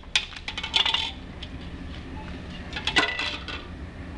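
A small red colander clinking and clattering as it is handled and knocked about, in two short bouts: one near the start and one about three seconds in.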